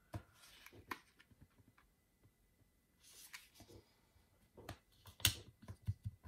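Light handling of paper on a tabletop: a brief rustle as a planner page slides around, and scattered sharp taps and clicks of fingers and nails pressing a washi-tape sticker strip onto the page, the loudest a little past five seconds in.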